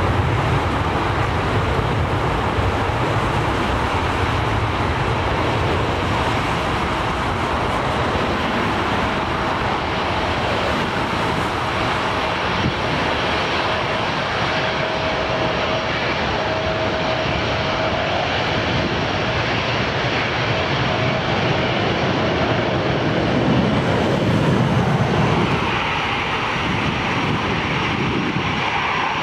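Jet airliner engines at high power on a takeoff roll: a steady, dense jet noise with a heavy low rumble, and a thin steady whine through the middle stretch. About three seconds before the end the sound changes to the lighter, higher engine noise of a four-engine jet taxiing.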